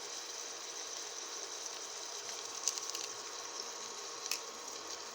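Onions sizzling steadily in olive oil in a frying pan, with a few brief clicks.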